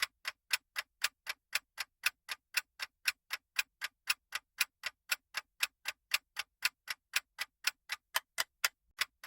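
Countdown timer sound effect: a clock ticking evenly, about four ticks a second.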